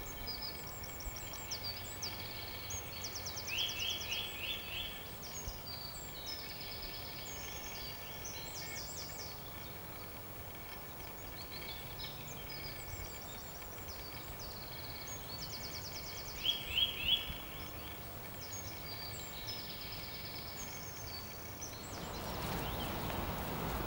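Songbirds singing in woodland: a run of short chirping and trilling phrases over a faint hiss, with a louder rapid trill about 4 s in and again about 17 s in.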